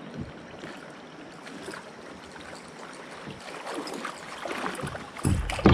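Steady rushing noise of water around anglers wading. A loud low bump about five seconds in.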